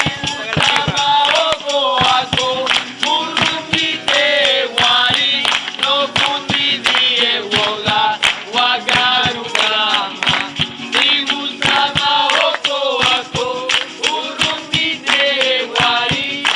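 Several voices singing a song together over a steady percussive beat.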